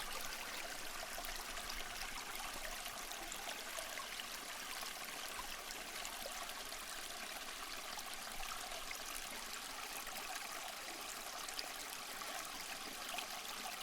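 Water trickling and splashing steadily down a small tabletop waterfall fountain, a faint, even flow.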